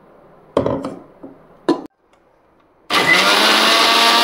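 A few knocks and a click as the steel jar of a mixer grinder is set in place and closed. About three seconds in, the mixer grinder's motor starts and runs steadily at full speed, blending soaked almonds and pistachios with curd and saffron milk.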